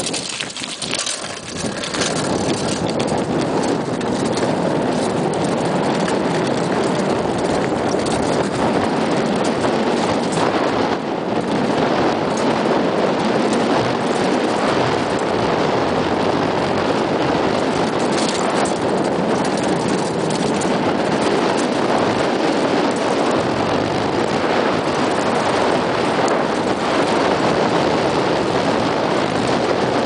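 Mountain bike rolling fast down a rough gravel and stone trail: a steady rush of tyre noise and wind on the microphone, with occasional knocks as the bike jolts over stones.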